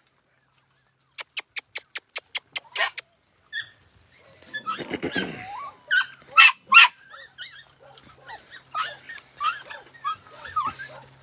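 A quick run of about nine sharp clicks, then a litter of puppies whining and yipping over and over, high and wavering in pitch, eager at feeding time.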